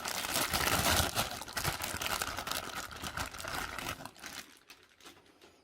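Packaging crinkling and crackling as a boxed figure statue is unwrapped and handled, fading out after about four seconds.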